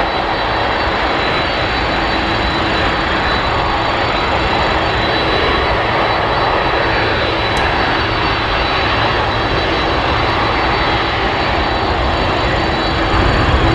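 Boeing 747-400 freighter's four General Electric CF6 turbofans running at low taxi power as the aircraft rolls past: a loud, steady jet rush with a thin high whine over it.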